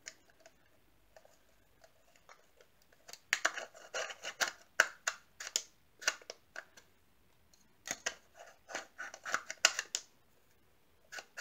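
Irregular clicks, snaps and scrapes of plastic parts as a small battery-powered desktop vacuum's housing is handled and fitted together, busiest in the middle stretch.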